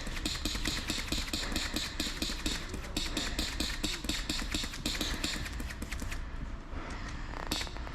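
Quick, crunching footsteps and rustling gear of a player moving on foot, a fast run of clicks that fades to quieter steps about six seconds in.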